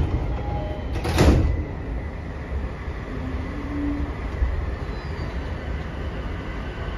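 Inside an E233-7000 series electric commuter train under way: a steady low rumble of wheels on rails and running gear, with one loud brief rushing noise about a second in.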